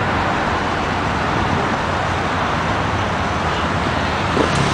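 Steady road traffic noise: a hybrid-electric city bus and cars moving through an intersection. A short knock comes near the end.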